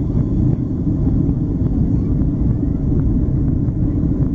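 Boeing 777-200ER's Rolls-Royce Trent engines at takeoff power heard from inside the cabin: a loud, steady low roar as the jet rolls down the runway and lifts off.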